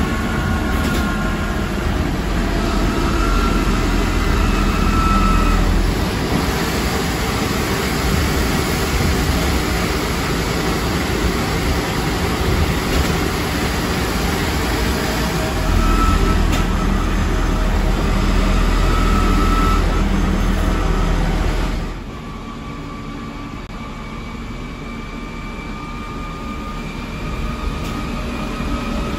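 ZF Ecomat IV 6HP504C automatic gearbox and driveline of a Scania K230UB bus, heard through an open floor hatch while the bus drives: a loud mechanical rumble with a faint gear whine. The noise drops sharply quieter about 22 seconds in.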